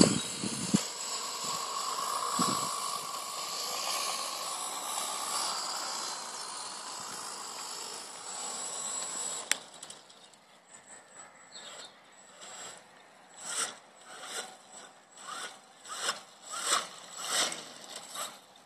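Steady whine of a home-built electric mini moto's 3 kW RC brushless motor and 120 A speed controller as the bike runs across the grass. The whine fades away about halfway through. In the last few seconds come short, sharp noises, about two a second.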